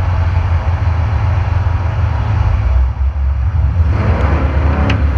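Off-road race truck's engine running, a loud steady low rumble. About four seconds in, a clearer, higher engine note comes up over it.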